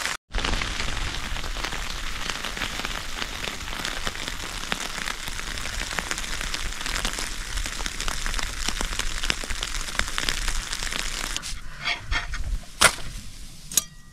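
Snow pellets (graupel) pelting a nylon tent, a dense, rapid patter of small ticks. About eleven seconds in it thins out, and a few separate knocks follow.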